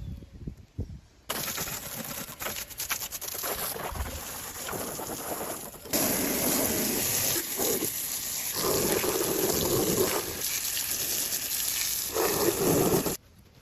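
Water spraying onto an ATV as it is washed: a steady, noisy hiss that starts about a second in, gets louder about six seconds in, and cuts off sharply just before the end.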